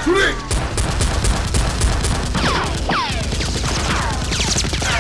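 Dubbed-in machine-gun fire sound effects: a rapid burst at about seven shots a second in the first two seconds, with falling whistle-like sweeps and a steady low rumble underneath. A short shout comes right at the start.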